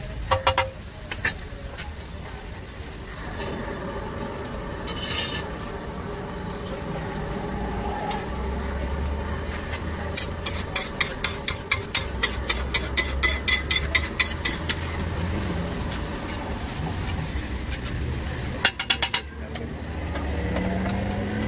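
Metal spatula scraping and tapping on a large flat iron griddle as egg mixture cooks with a sizzle. A quick run of sharp taps comes in the middle, about four a second, and a short cluster of clicks comes near the end.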